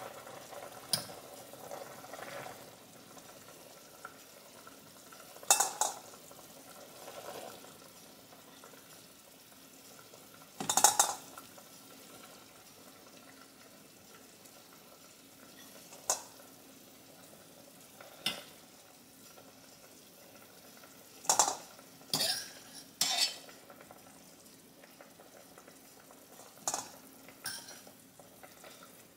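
Metal fork clinking against a stainless steel pot and bowl as boiled chicken pieces are lifted out of the cooking water and dropped into the bowl: short, sharp clinks every few seconds, some in quick pairs, over a quiet steady background.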